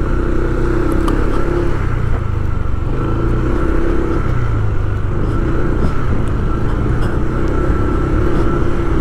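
Motor vehicle engine running steadily while travelling along a street, with a hum that wavers a little in pitch.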